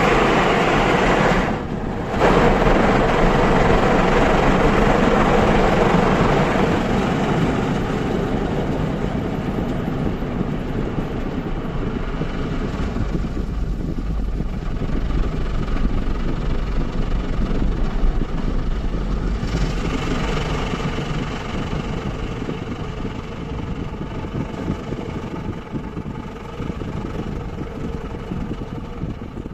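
A car heard from inside its cabin, first moving and then stopped with its engine idling: a steady rush of noise that slowly gets quieter, with a deep rumble in the middle.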